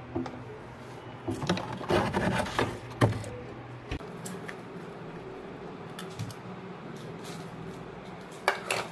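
Plastic ice-pop mould scraping and knocking against a frosty freezer shelf as it is pulled out, a run of rubbing with a few sharp knocks between about one and four seconds in. Near the end, a few sharp plastic clicks as a frozen ice pop is worked out of the mould.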